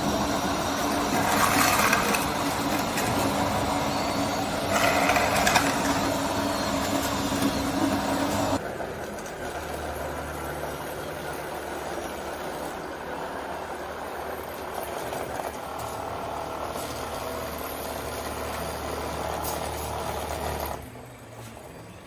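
Scale RC construction machines running: a steady motor hum with two louder rattling stretches. About 8 s in the sound changes suddenly to a quieter, lower steady running sound, which fades down near the end.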